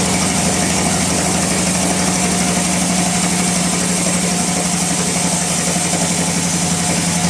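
Bandsaw running steadily with a constant low hum.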